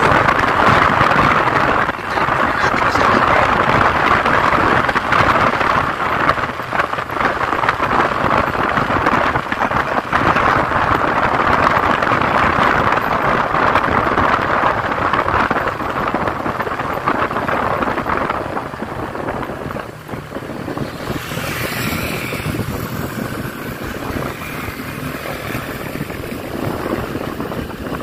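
Wind and road noise from riding a motorcycle at speed, a steady loud rush. About nineteen seconds in it eases off and gets quieter as the bike slows into traffic.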